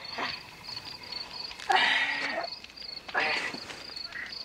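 Crickets chirping steadily, a high pulse about four times a second. A man's voice twice breaks in with short wordless sounds, the louder one about halfway through.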